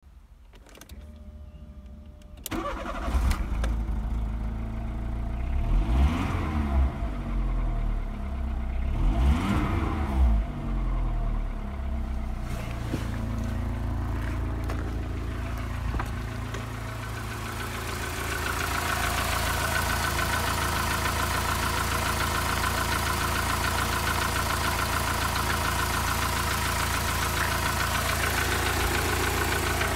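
VW Polo's 1.4-litre MPI four-cylinder petrol engine (code AUD) starting about two and a half seconds in, revved twice, then idling steadily. In the last third it is heard up close under the open bonnet, with more high-pitched mechanical noise over the idle.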